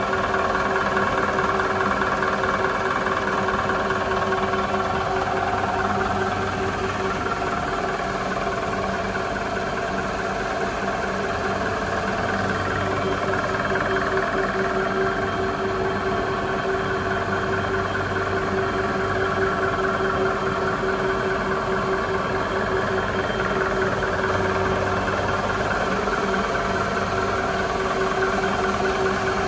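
High-speed label die-cutting and slitting machine running at speed, a steady mechanical hum with a constant mid-pitched tone.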